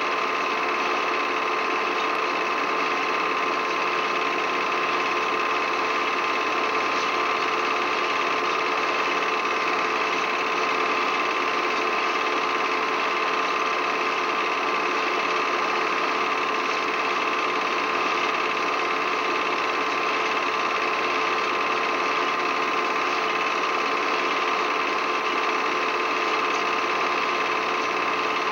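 Steady mechanical whir with a constant high hum, unchanging throughout, like a small motor-driven mechanism running.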